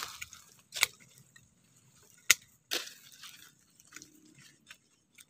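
Hand pruning shears snipping twigs off a durian branch: a few sharp clicks, the loudest about two seconds in, followed by a short rustle of leaves.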